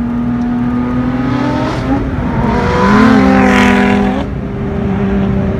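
Lotus Exige Sport 380's supercharged 3.5-litre V6 driving at speed toward and past, loudest about three and a half seconds in as it goes by, then carrying on more quietly as it pulls away.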